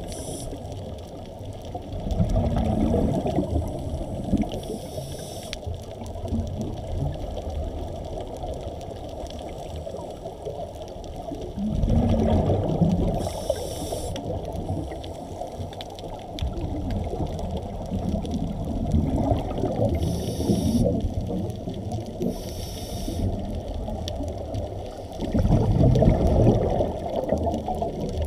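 Muffled underwater water noise picked up by a submerged camera: a low continuous rushing and sloshing that swells louder three times, with a few brief faint hisses.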